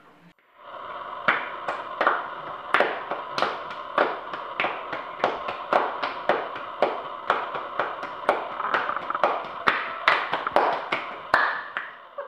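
Two people playing a hand-clapping game, slapping their palms together in a quick, uneven rhythm of about two to three claps a second. The claps stop abruptly at the end.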